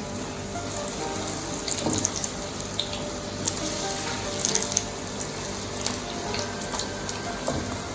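Slices of roasted breadfruit frying in hot cooking oil: a steady sizzle with frequent crackles and pops.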